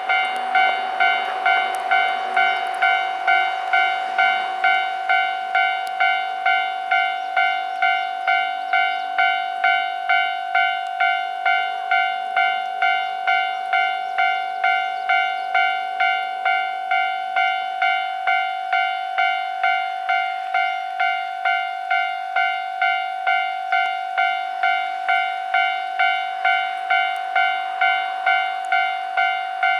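Japanese railway level-crossing warning bell ringing, an even, steady ding-ding-ding of a little under two strikes a second.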